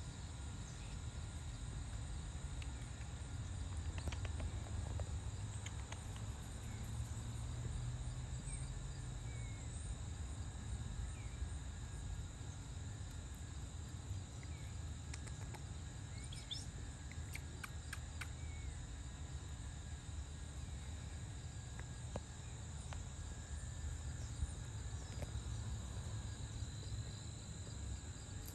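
Rural outdoor ambience: a steady high-pitched insect drone over a low rumble, with a few short faint chirps and clicks.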